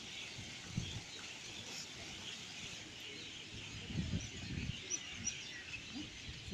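Many birds chirping and calling at once in a dense chorus, with a few low thumps about four seconds in.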